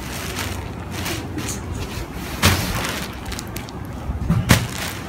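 Rustling and bumping as a child rolls about on a bed, with two sharp knocks: one about two and a half seconds in and a louder one about four and a half seconds in.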